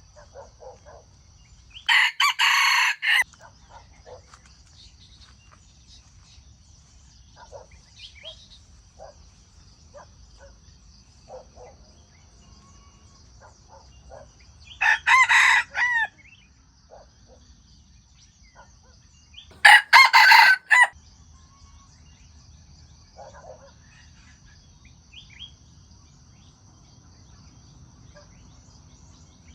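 Jungle fowl rooster crowing three times, each crow short, about a second long, with faint short clucks in between.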